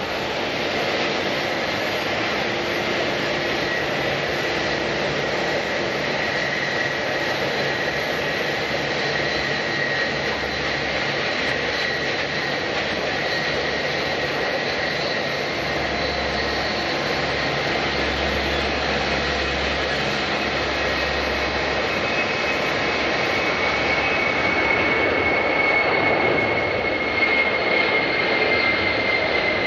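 Jet airliner engines running steadily, with a broad rush and a thin high whine. The sound grows a little louder and the whine dips slightly in pitch near the end.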